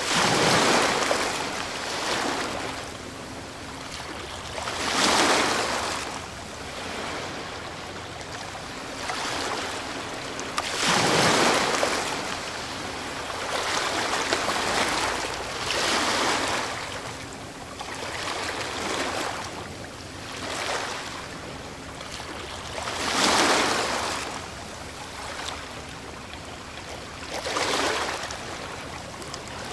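Ocean waves breaking on a shore: a rushing wash of surf that swells and fades again, one surge about every five or six seconds, some breakers louder than others.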